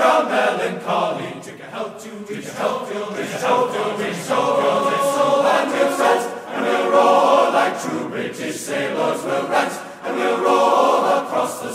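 Background music with a choir singing.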